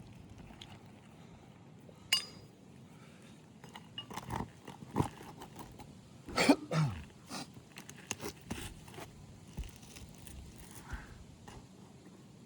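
Scattered scrapes, knocks and crunches of hand work on asphalt roof shingles as they are lifted and their nails worked loose, with a louder clatter and a short falling squeak about six and a half seconds in.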